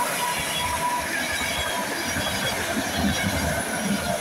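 Intercity passenger coaches behind an electric locomotive rolling past, a steady wheel-on-rail rumble and rush. A thin high tone fades out about a second in, and a few low knocks of wheels over rail joints come near the end.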